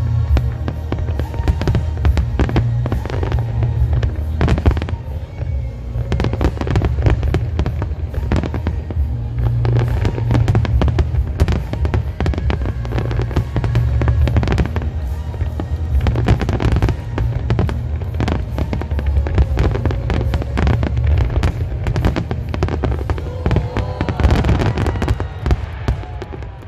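Aerial fireworks display: a dense, continuous run of shell bursts and crackling cracks over heavy low booms, with music playing alongside.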